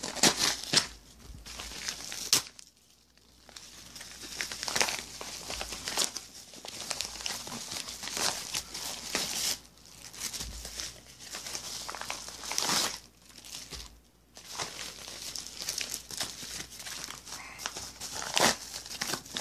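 Plastic and paper packaging crinkling and tearing as a package is unwrapped by hand, in irregular stretches broken by a few short pauses.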